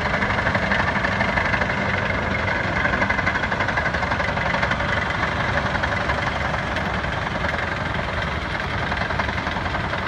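Heavy earthmoving machines, a tractor pulling a dirt scraper and a tracked bulldozer, with their diesel engines running steadily as they work: a continuous racket.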